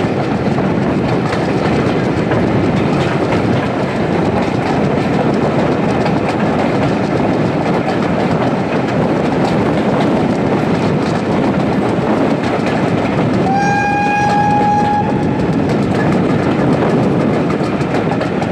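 Steam-hauled passenger coaches running along the line, with a steady rumble and wheel clatter on the rails. About two-thirds of the way through, the steam locomotive at the head of the train sounds its whistle once, a single held note of about a second and a half.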